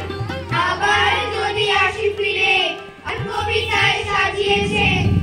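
A group of children singing a song together into microphones, with a steady low drone beneath the voices. There is a short break about three seconds in.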